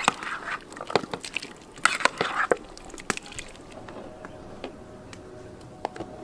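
Ladle knocking against a big metal pot as diced cured meat and vegetables are tipped into thick simmering grain porridge, a few sharp clinks and splashy scrapes over the first three seconds. After that it is quieter, with a wooden spoon stirring the porridge.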